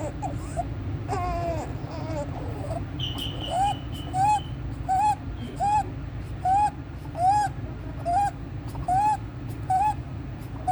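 A newborn's inspiratory stridor: a short, high-pitched crowing squeak with each breath in. It repeats evenly, about one and a half breaths a second, from about four seconds in, after a few whimpers. This noisy breathing through a narrowed upper airway is typical of laryngomalacia.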